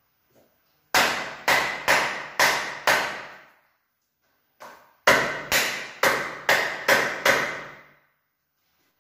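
Hollow knocks on a rod-carrying tube struck by hand: five quick knocks, a pause, then six more, each ringing briefly.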